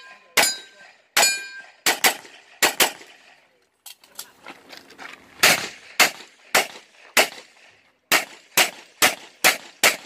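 Rapid pistol fire, about eighteen shots mostly in quick pairs, with a pause of a couple of seconds partway through before two more dense strings. Steel targets ring with a metallic tone after a few hits early on.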